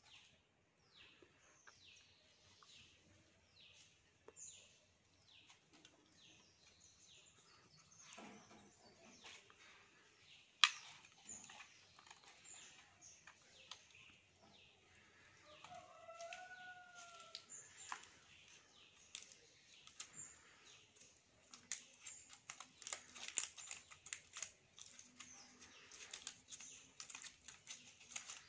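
Faint bird chirping: short high notes that sweep downward, a few a second, for the first several seconds, with a short rising-and-falling call about sixteen seconds in. A sharp click about ten seconds in, and from about two-thirds of the way through, small clicks and rustling from wires being handled.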